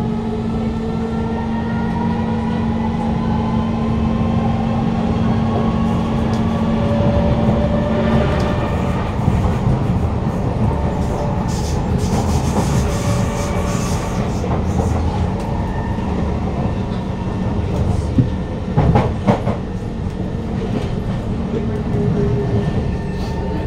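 Kawasaki C151 metro train running, heard from inside the car: the whine of its GTO-VVVF traction motors in several tones that slowly shift in pitch over the rumble and clatter of wheels on track. A steady hum stops about a third of the way through, a brief high hiss comes near the middle, and a few sharp knocks follow later.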